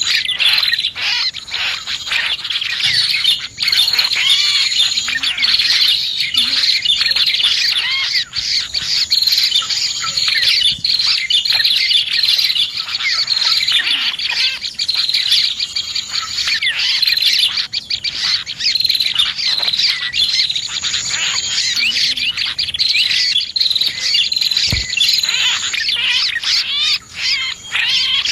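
Dense, unbroken chorus of high, rapid chirps and trills from prinias (prenjak) and other small songbirds, a bird-lure call recording.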